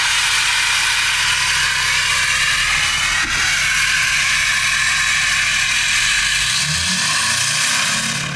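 Ford 6.7L Powerstroke V8 turbodiesel running steadily just after start-up, heard at its 5-inch straight-piped exhaust: a low engine note under a loud steady high hiss.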